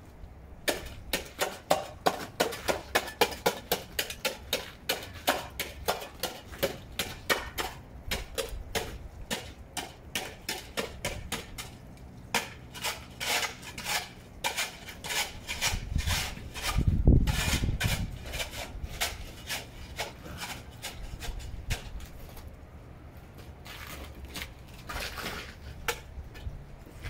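A long-handled ice scraper chipping and scraping at ice-covered pavement: rapid repeated strikes, several a second, with one deeper, louder thump past the middle.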